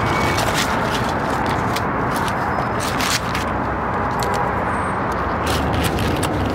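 Steady outdoor traffic noise, with short clicks and rustles scattered through it.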